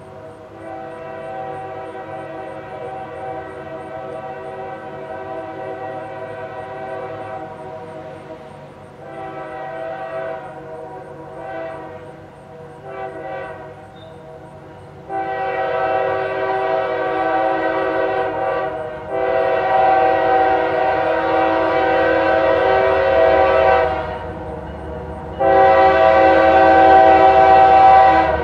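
Freight locomotive's air horn sounding a chord in a series of blasts, mostly long with a short one just before the last, growing louder as the train approaches. This is the warning for the grade crossing ahead. The locomotive's engine rumble comes up near the end.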